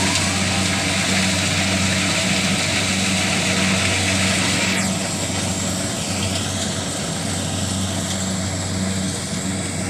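An engine running steadily at close range, a low even hum under a loud hiss that eases about halfway through.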